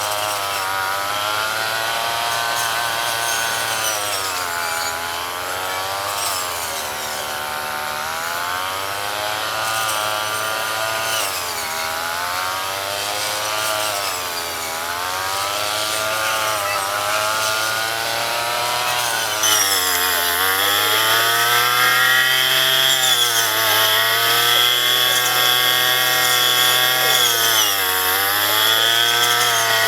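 Small 35 cc two-stroke petrol engine of a handheld rice harvesting machine running at high revs, its pitch dipping and recovering again and again every couple of seconds. About two-thirds of the way in the sound changes abruptly to a brighter, louder whine.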